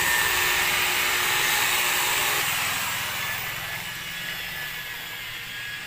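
Electric rotary car polisher with a foam pad running against painted bodywork, a steady motor whine over a hiss, while it buffs paint with rubbing compound. About two and a half seconds in, the whine stops and the sound dies away over the next second or so as the polisher is switched off.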